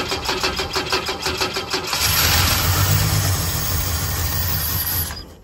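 Holden 202 red-motor straight-six cranking on the starter with the choke on, about five turns a second, then catching about two seconds in and running. This is its first start after sitting eight years.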